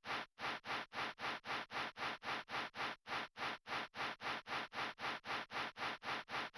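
Sleeping cat with a head cold breathing noisily through a blocked nose: quick, even, breathy puffs, about three a second.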